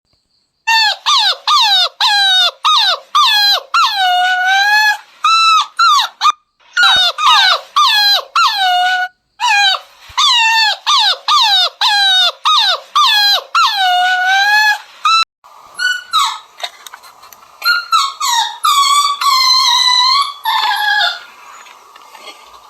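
Beagle puppy yelping and whining: a rapid string of short, high-pitched calls, about two a second, each bending up or down in pitch. From about 15 seconds in, the calls come more sparsely over a faint background hiss, stopping about a second before the end.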